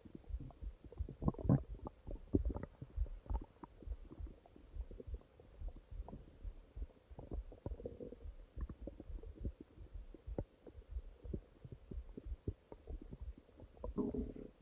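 A person's stomach growling: a run of irregular gurgling rumbles, with louder gurgles about a second and a half in and again near the end.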